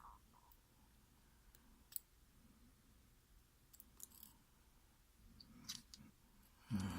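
Faint, scattered small clicks of metal lock parts and tools being handled while a pin-tumbler mortise cylinder is taken apart, with a louder clatter near the end.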